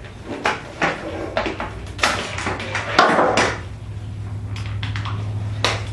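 Plastic and metal parts of a dehumidifier clicking and knocking as they are handled and pulled apart by hand, with the loudest clatters about two and three seconds in. A low steady hum comes in about halfway through.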